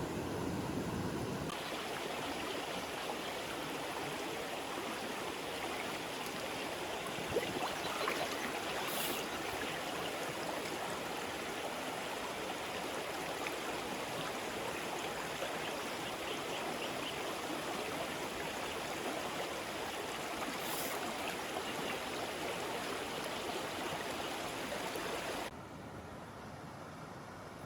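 Mountain stream running, a steady rush of water; the sound switches over abruptly about a second and a half in and drops away suddenly near the end.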